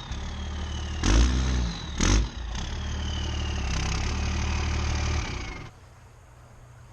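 Dodge Ram 2500 diesel pickup running as it is backed up, with a whine that falls slowly in pitch. Two louder surges come about one and two seconds in. Near the end the engine drops back to a quieter, steady idle.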